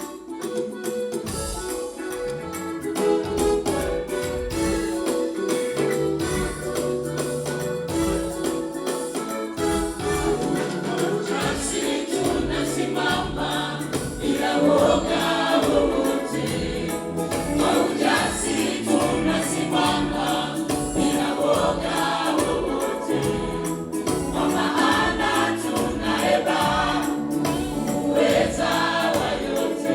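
Gospel choir singing in Swahili with instrumental accompaniment over a regular beat. The music opens with steady held notes, and the choir's voices come in about ten seconds in.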